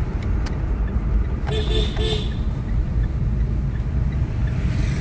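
A vehicle horn gives a few short toots in quick succession about a second and a half in, over the steady low rumble of the car's engine and tyres heard from inside the cabin.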